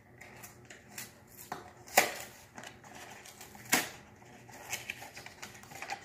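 Cardboard pudding-kit box being opened and handled: a few sharp taps and knocks, the loudest about two seconds in, with light rustling and small ticks between.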